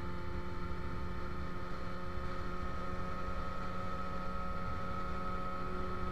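Motorcycle engine running at a steady cruise, with the steady drone of wind and road rumble on the bike-mounted camera.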